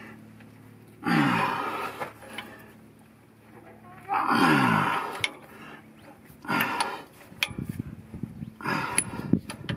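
A man grunting with effort four times, each a breathy sound falling in pitch, as he forces seized brass air-line fittings loose with a combination wrench. Sharp metallic clicks of the wrench on the fittings come in between.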